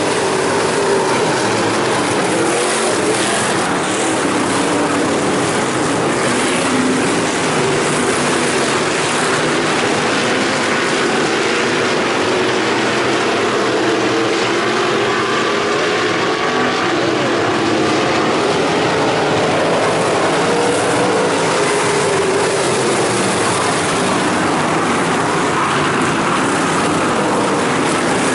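A pack of IMCA stock cars racing, their V8 engines running together in a steady, loud roar, with many overlapping engine notes rising and falling as the cars pass and lap.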